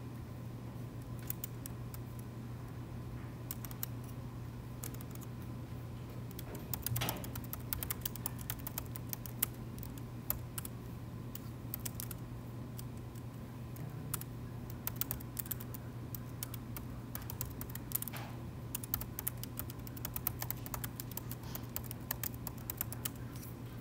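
Typing on a laptop keyboard: short, irregular key clicks in quick runs with brief pauses. A steady low hum lies underneath.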